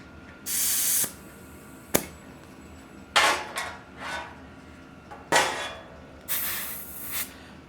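Short bursts of air hissing as a mountain bike tire is inflated from about 43 to 49 psi to seat the tire and insert on the rim, with a sharp click about two seconds in.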